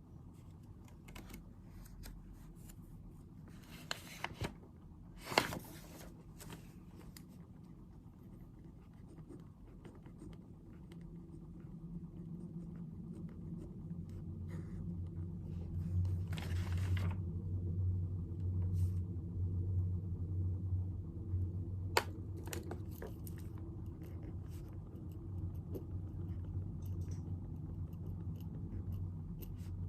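Desk study sounds: a few short clicks and rustles of things being handled, over a low steady hum that swells about a third of the way in.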